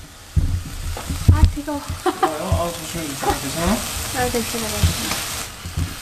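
Garlic, ginger and broccoli stir-frying in a hot pan: a steady sizzle with a spatula stirring, scraping and knocking against the pan. The sizzle drops off near the end.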